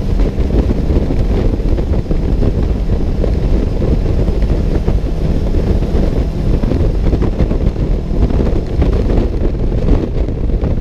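Steady noise of a vehicle travelling at speed, with wind buffeting the microphone.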